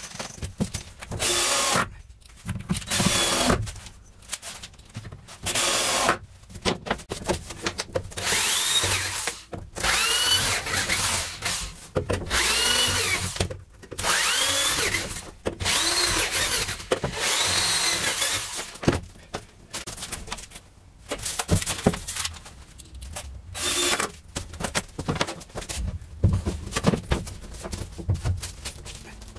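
Cordless drill driving screws into 2x4 wall framing, in repeated bursts of about a second, each a whine that rises in pitch as the motor spins up.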